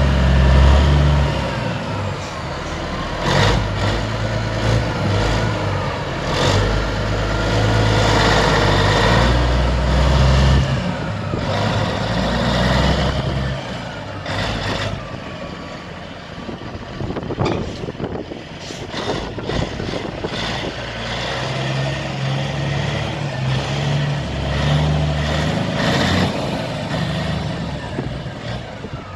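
Diesel engine of a Kenworth K100 cabover semi-tractor running under way. Its note is heavy and loud at first, fades as the truck draws off and circles, then grows again about three-quarters of the way through as it comes back.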